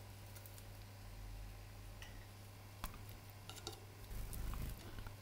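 Caged finches making a few faint ticks and short chirps over a steady low hum, with a low rumble about four seconds in.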